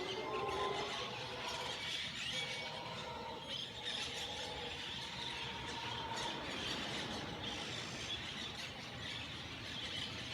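Many birds calling at once, with squeals, chirps and squawks overlapping over a dense, steady natural background.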